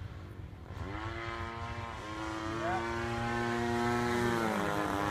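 Engine of a Stinson Reliant airplane droning in flight overhead. The pitch dips and climbs back about half a second in, holds steady, then slides down near the end, and it grows louder in the second half.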